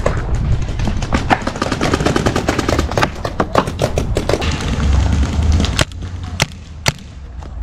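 Paintball markers firing in quick strings of shots, several a second, thinning to a few single spaced shots near the end.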